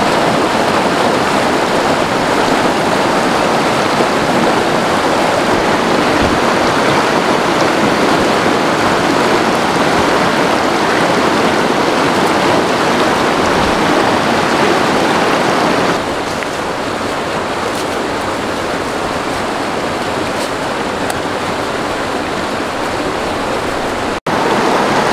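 Rushing water of a rocky mountain stream tumbling over stones and small cascades, a steady loud rush. About two-thirds of the way through it drops a little in level and turns softer, and it cuts out for an instant near the end.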